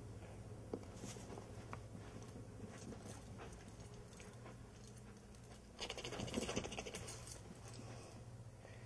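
Chihuahua puppy playing hyper after a bath: light pattering and small clicks of him scampering, then a louder, rough scuffling burst lasting about a second, about six seconds in.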